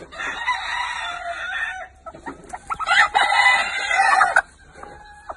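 Rooster crowing twice, two long harsh crows of about two seconds each with a short pause between them.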